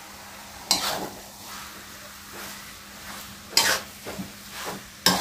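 A spatula stirring and tossing fried rice vermicelli in a metal wok over a low sizzle, with three sharp scrapes against the pan: about a second in, past the middle and at the end.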